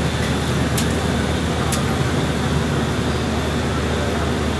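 Steady street traffic noise, with light sharp chops of a curved machete cutting a green coconut, about once a second in the first two seconds.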